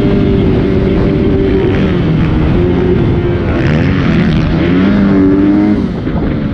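Dirt bike engine running hard under the rider, its pitch climbing and dropping with throttle and gear changes, over a steady rush of wind on the microphone. Near the end the engine note falls away as the rider backs off the throttle.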